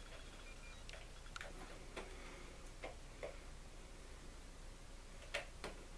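Faint, irregular small clicks of metal rail joiners being slipped onto the rail ends of model railroad track, with two sharper clicks close together near the end.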